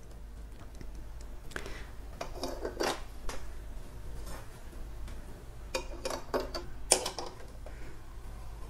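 Metal brackets clinking and knocking as they are set onto a steel battery case and its hardware handled: two clusters of short clatters, some briefly ringing, over a faint steady low hum.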